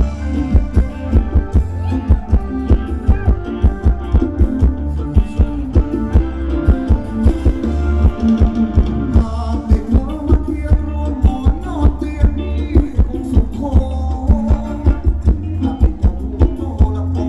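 Thai ramwong dance music from a live band: a heavy bass and a steady, quick drum beat under a melody line, with some singing.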